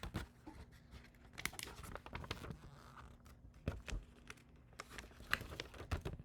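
Scattered clicks and knocks of hard plastic parts being handled: the portable fan's water tank and lid being worked by hand.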